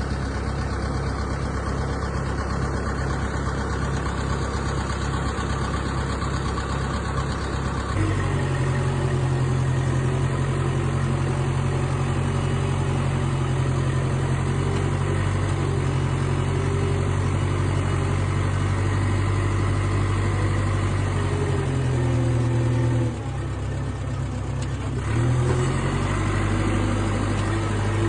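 Old 450 bulldozer's engine running steadily, then louder and at a higher pitch from about eight seconds in as it is throttled up to work. It drops back briefly a few seconds before the end and picks up again.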